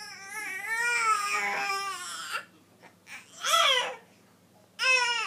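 Baby crying in wavering wails: one long cry, a short one about three and a half seconds in, and another starting near the end.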